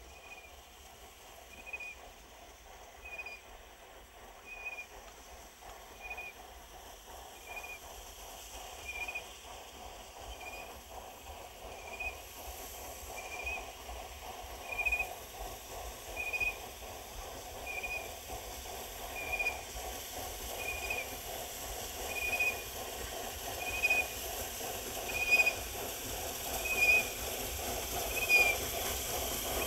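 Steam locomotive working slowly toward the listener, growing louder as it approaches, with a steady chuffing and a short high squeak repeating about every second and a half.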